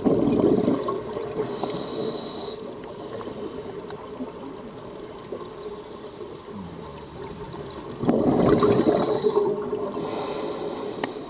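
Scuba regulator breathing underwater: two exhalations of bubbling air about eight seconds apart, each followed by a short hiss of inhaling through the regulator.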